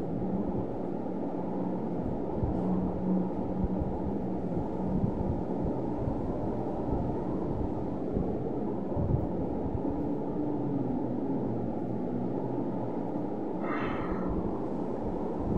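Steady low rumbling background noise, with a brief higher-pitched sound near the end.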